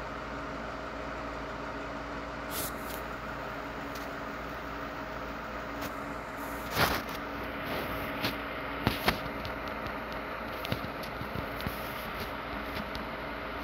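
Steady background hum, with a few light clicks and taps in the second half.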